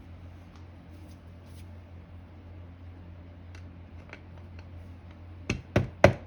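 A few light clinks of metal parts being handled, then three or four sharp taps in quick succession near the end: a tool tapping on the vintage 1/15 HP General Electric motor to loosen a stuck part. A steady low hum runs underneath.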